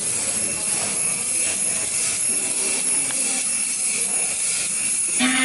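A steady, even hiss, then music with held tones starts about five seconds in.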